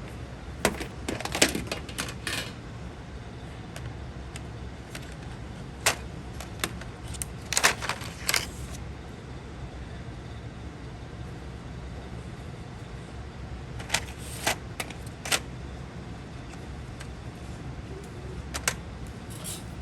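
Colored pencils clicking and clattering as they are handled, picked up and set down on a hard tabletop: scattered single clicks and short clusters of taps, over a low steady room hum.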